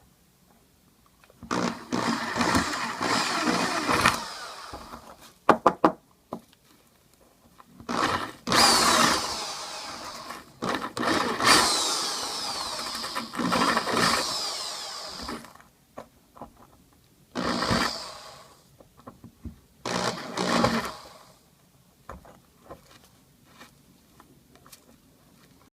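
Electric drill running in four bursts, the longest about seven seconds, its bit boring out the hardened glue that holds the old knot in a wooden shaving-brush handle. A few sharp clicks come between the first two bursts.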